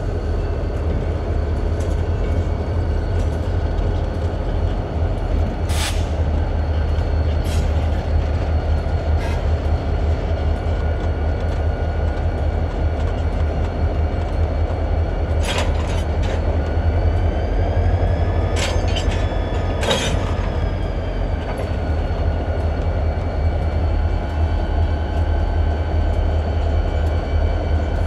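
Diesel locomotives running with a deep, steady engine rumble as they move slowly. Several sharp clanks are heard, mostly around the middle, along with a brief wheel squeal that rises and falls.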